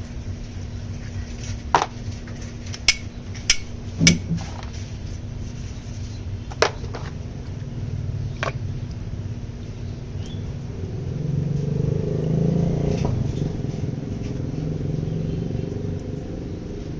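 Motorcycle engine running steadily, swelling somewhat louder about eleven to fourteen seconds in. Several sharp metallic clinks of tools sound over it in the first nine seconds.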